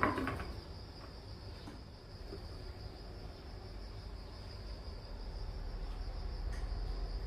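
Crickets chirring in a steady high trill over a low rumble, with a short clatter at the very start.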